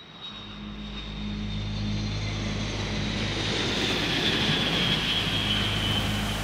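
Jet airplane passing overhead, its noise swelling over the first couple of seconds, with a thin high whine that slowly falls in pitch over a steady low hum.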